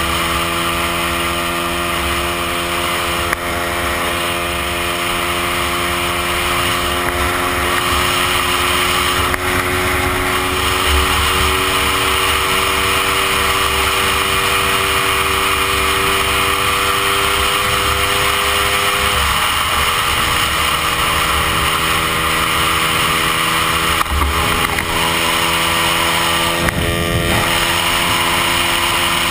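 Lambretta scooter's 225 cc two-stroke engine (AF Rapido kit with a Rayspeed exhaust) running under way, with wind rush over the microphone. The engine note climbs slowly for about twenty seconds, drops as the throttle is eased, then holds steady.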